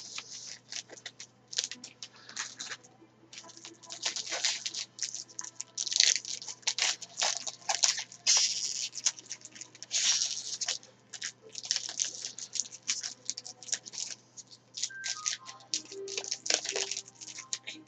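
Crinkling and tearing of a trading-card pack wrapper as it is opened, with cards being handled: a run of short, crackly rustles.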